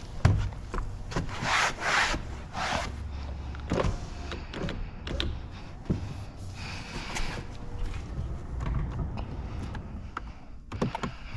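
Repeated rubbing and scraping strokes on a car's side window glass as it is cleaned and prepped for window tint, with scattered clicks and knocks.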